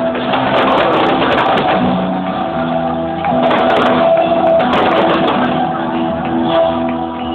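Live music played over a public address system to a crowd: held notes and chords that change every half second or so, with crowd noise underneath.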